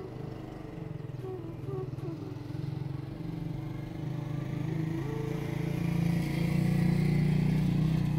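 Engine of a road vehicle running as it drives along, a low pulsing note that grows louder about two-thirds of the way in, with road and wind noise.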